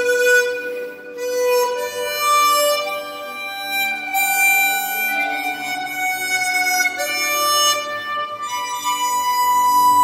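Swan SW1248 chromatic harmonica, customized to be airtight with a flattened comb and mouthpiece, playing a slow melody of long held notes along with a backing recording.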